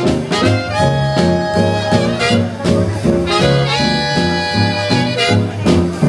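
Live swing band playing an instrumental break without vocals: saxophones carrying the melody over upright bass and drums.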